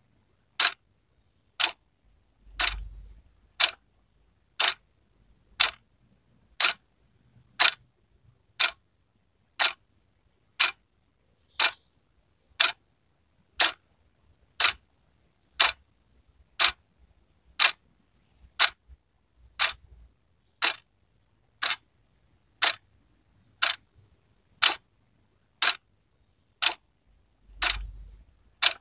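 Wall clock ticking steadily, one sharp, even click a second. A faint low rumble comes in twice, once near the start and once near the end.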